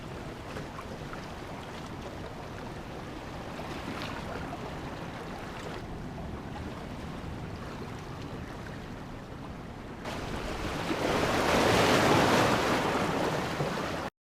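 Ocean surf washing ashore with wind buffeting the microphone; a bigger wave swells up and breaks about ten seconds in, louder than the rest, before the sound cuts off suddenly near the end.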